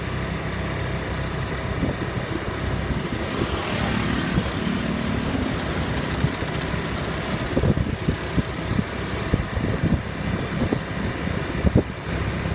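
ATV engine running steadily with a low hum, with scattered knocks and thumps through the second half.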